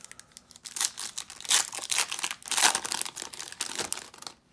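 Foil wrapper of a baseball card pack crinkling and tearing as it is ripped open, a run of rustles and snaps with two louder bursts about one and a half and two and a half seconds in.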